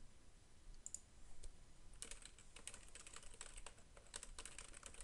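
Typing on a computer keyboard: a rapid run of key clicks starting about two seconds in, after a couple of faint clicks about a second in.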